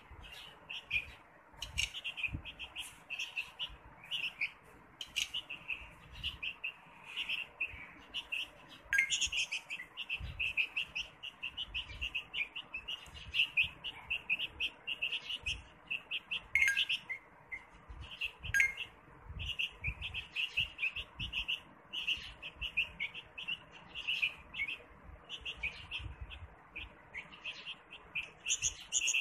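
Small birds chirping rapidly and without a break, about five high chirps a second, with a few longer downward-sliding calls about nine, sixteen and eighteen seconds in.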